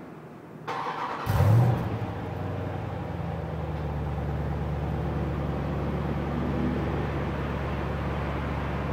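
2014 Jeep Grand Cherokee SRT's 6.4-litre HEMI V8 with stock exhaust starting up. It flares briefly about a second in, then settles into a steady low idle.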